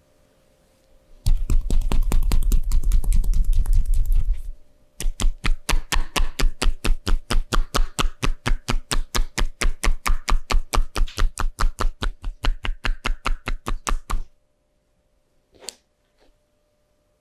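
Rapid, evenly spaced taps, several a second, in two long runs: the first a short one with a heavy low thud to each stroke, the second a longer one after a brief break. One lone tap near the end.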